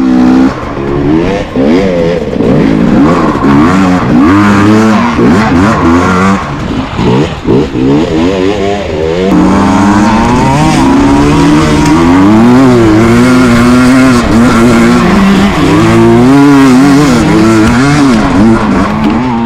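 KTM EXC 250 TPI two-stroke single-cylinder enduro engine running under riding load, its revs rising and falling again and again as the throttle is worked.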